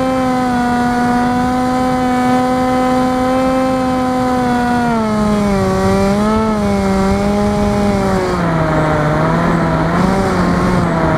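Electric motor and 6-inch propeller of an FPV flying wing running: a steady buzzing drone that drops in pitch about halfway through and drops again, wavering, near the end as the throttle is eased back.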